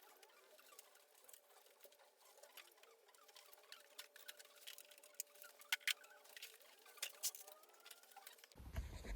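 Faint scattered clicks and taps over a faint steady hum. About eight and a half seconds in, it cuts suddenly to louder low room rumble.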